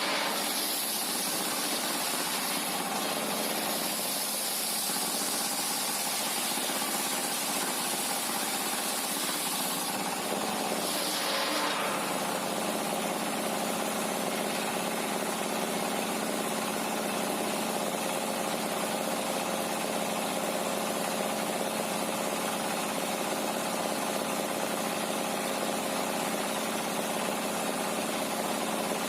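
Sawmill machinery running steadily: a motor's even hum under a constant hiss, the hiss brighter for the first ten seconds or so.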